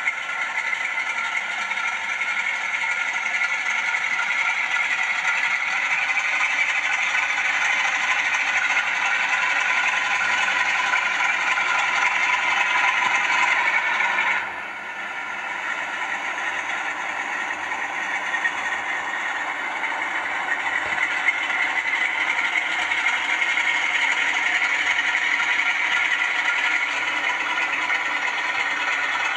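Class 47 diesel engine sound from a Zimo ZS47A sound decoder in a model locomotive, played through small bass-reflex speakers while the model runs: a steady, rattly engine note that sounds thin, with little bass. It dips briefly about halfway through and then carries on.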